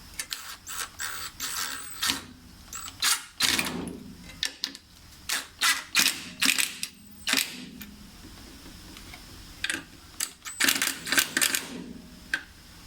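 Irregular clicks and knocks of small workshop parts being handled and fitted together, a few sharp taps a second in bunches, with a lull past the middle.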